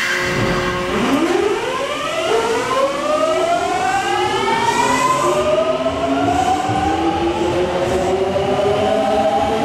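Kintetsu 3200 series (later batch) train's Mitsubishi GTO VVVF inverter whining as the train accelerates away: several tones climb together in pitch, and the pattern of tones changes about two seconds in.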